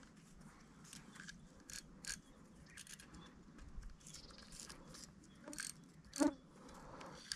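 Faint scattered clicks and rustles, with one louder knock about six seconds in.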